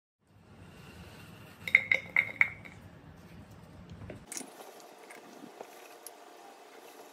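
Glass pot lid with a metal rim clinking sharply against the pot about four times in quick succession, ringing briefly. After that come a few faint ticks as diced beet is dropped into a glass jar.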